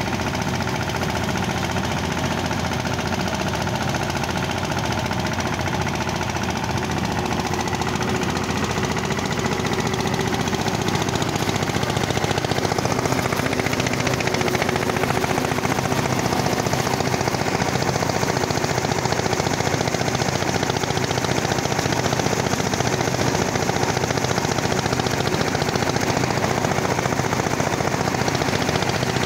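DK Champion 165DI mini tractor's direct-injection diesel engine running steadily under load, driving a thresher through its PTO, with the thresher's machinery running. The din gets a little louder about a third of the way in.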